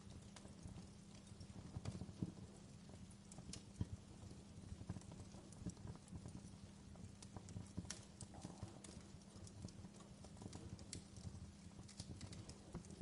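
Wood fire in a fireplace crackling, with irregular sharp pops and snaps over a low, steady rumble.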